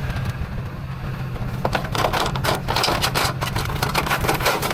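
Rapid clattering and knocking of wood and junk being handled and rummaged through, starting about a second and a half in, over the steady hum of an idling vehicle engine.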